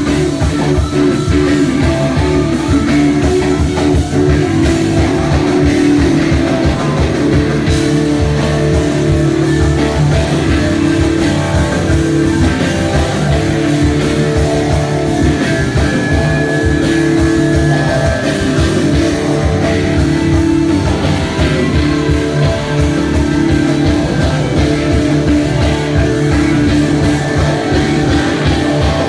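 Live rock band playing an instrumental passage, with electric guitars over drums.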